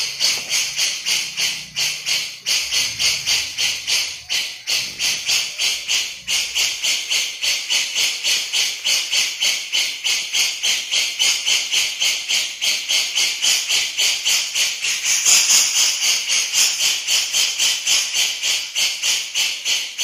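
Cucak jenggot (grey-cheeked bulbul) giving its harsh, rattling 'besetan' call as a fast, even run of scratchy notes, about three a second, growing louder about three quarters of the way through.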